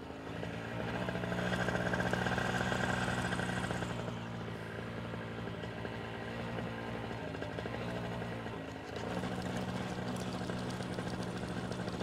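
Paramotor engine running steadily in flight, a constant motor drone. It grows louder about a second in and dips briefly just before the ninth second.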